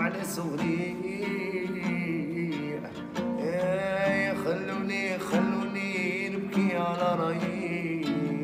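A man singing an Arabic song, accompanying himself on a classical acoustic guitar.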